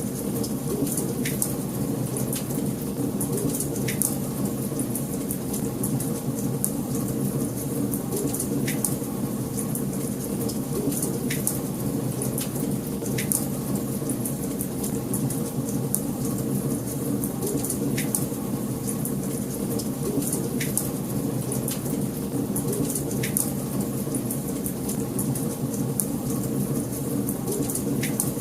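Wood fire burning in a fireplace: a steady low rush of flames with frequent sharp crackles and pops.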